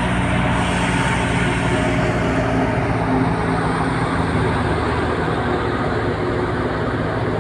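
Fiat 640 tractor's diesel engine running steadily while it drives a wheat thresher, the engine's hum mixed with the thresher's constant mechanical rushing.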